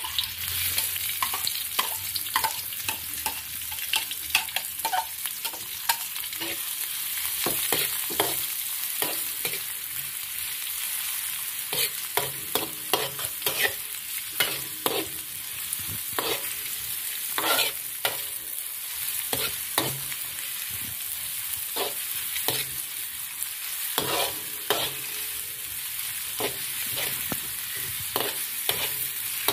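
Shallots frying in hot oil in a pan, sizzling steadily as they brown toward golden. A spatula scrapes and taps against the pan again and again as they are stirred.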